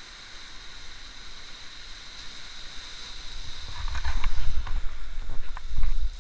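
Whitewater rushing through a concrete weir drop, a steady hiss. From a little past halfway it grows louder with a heavy low rumble, and a few short knocks come through.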